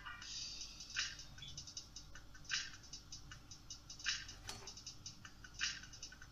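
Hot oil crackling with khvorost dough frying in it. A dense patter of small pops, with a stronger burst of crackle about every second and a half.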